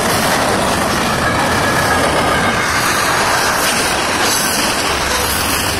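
CSX freight train Q439's cars rolling past at speed, a steady loud rush of steel wheels on rail.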